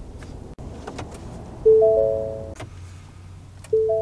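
Ford F-150 Lightning cabin chime as the truck powers up: a three-note chime that sounds about halfway through and again near the end, about two seconds apart, with a few light clicks in between.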